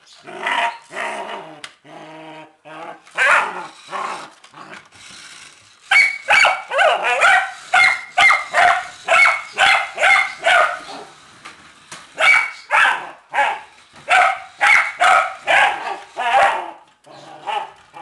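Border Collie puppy barking: a few scattered calls at first, then from about six seconds in a loud run of short barks, about two a second.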